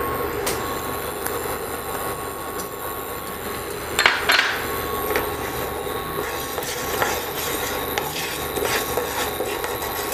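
Dry split moong dal (skinless green gram) tipped into a nonstick pan and then stirred and scraped around with a wooden spatula, grains rattling and rustling, with a few louder knocks of the spatula on the pan about four seconds in.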